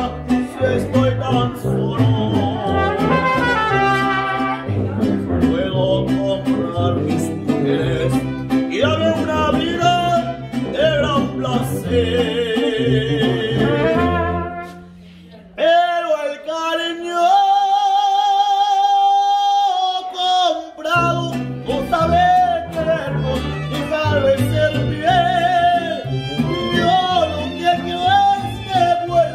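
Live mariachi band playing, with violins, guitars, guitarrón and a sousaphone, and a man singing. About halfway the music drops briefly, then a long high note with vibrato is held for about five seconds without the bass before the full band comes back in.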